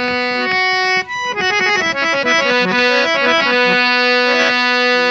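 Harmonium playing a held drone chord, breaking about a second in into a quick run of melodic notes, then settling back onto a sustained chord.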